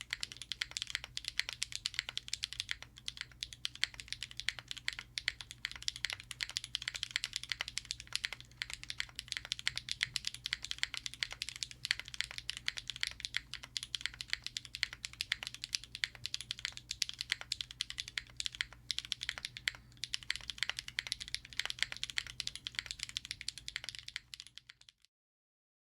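Fast, continuous typing on a mechanical keyboard fitted with Wingtree tactile switches (POM stems, nylon housings, factory lubed), giving a dense run of clacky keystrokes with a little scratch. It stops abruptly near the end.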